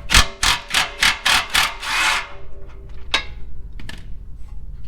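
Electric impact gun working an exhaust mounting bolt loose, in a quick string of short bursts about four a second, with a longer burst about two seconds in and one more near three seconds.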